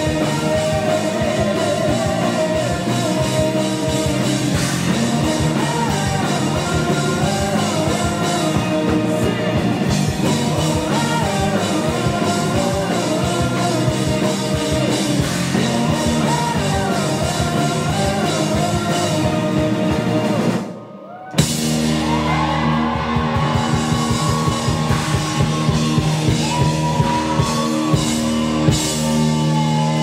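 Live rock band playing with singing, electric bass, guitars and a drum kit. About two-thirds of the way through, the sound cuts out for under a second, then the band comes back on long held chords.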